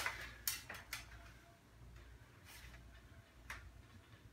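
Light clicks and knocks of a visible gas pump's top and chrome arm being worked into place on the pump: a quick cluster in the first second, then two more spaced out, over a faint low hum.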